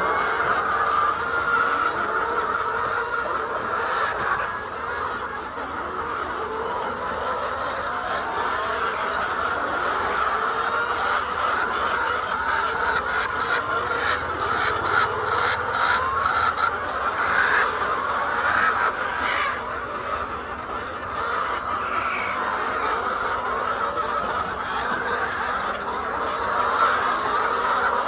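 A flock of laying hens clucking and calling without a break, many voices overlapping. A run of light clicks and taps comes about halfway through.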